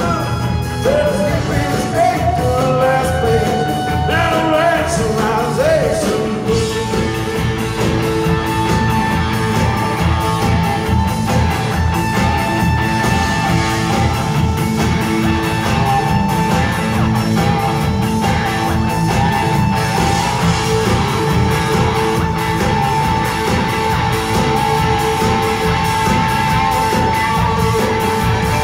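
Live rock band playing loudly: electric guitar, bass and drums, with vocal or guitar melody lines bending in the first few seconds and a long held note from about six seconds in. Heard from the audience on a phone.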